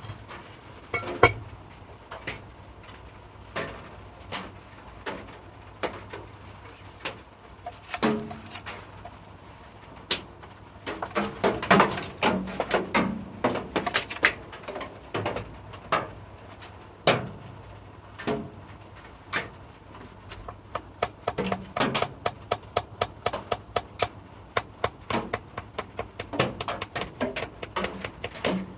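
Irregular knocks, taps and clicks from hand work with tools and objects, sparse at first and coming thick and fast at times, over a steady low hum.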